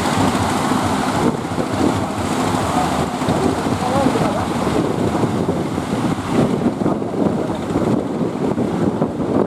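Strong wind buffeting the microphone over the steady rush of ocean waves and surf.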